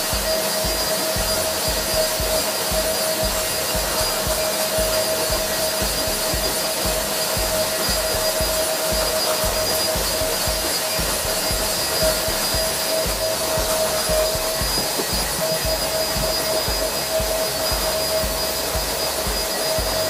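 Vacuum cleaner running steadily while its floor nozzle is worked over a carpet: a constant rush of air with a steady whine on top. The whine drops out briefly about fifteen seconds in.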